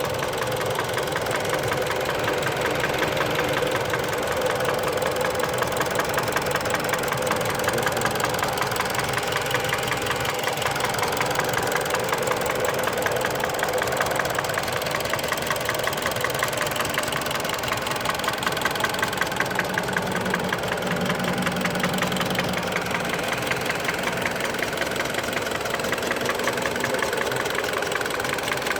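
Mitsubishi Lancer X's 1.8-litre 4B10 four-cylinder engine idling warm, with a steady, rapid knock over the running. The knock appears only once the engine is warmed up and only at idle, and its cause is unknown to the owner.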